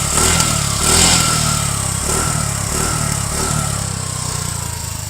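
TVS Jupiter Grande's 110cc single-cylinder scooter engine running, heard close to the exhaust, louder in the first second or so and then fading gradually toward the end.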